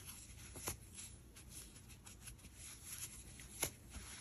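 Faint rustling and light clicks of a crochet hook working single crochet in chunky acrylic yarn, with a sharper tick a little under a second in and another near the end.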